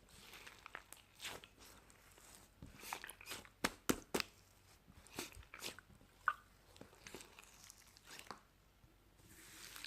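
Close-up irregular crunching and clicking sounds, a scattered run of sharp snaps that is loudest and densest about three to four seconds in, then thinning out.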